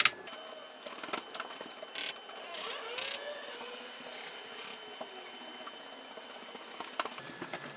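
Quiet room tone with a few faint, scattered clicks and taps and a faint steady high-pitched tone.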